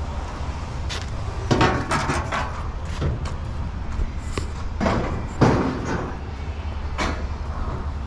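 Pieces of scrap metal being handled and tossed onto a pile, giving irregular clanks and knocks, several a few seconds apart, over a steady low rumble.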